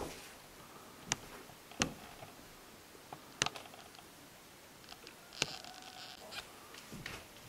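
Quiet room tone in an empty wooden room, broken by about five sharp, isolated clicks and knocks at irregular intervals.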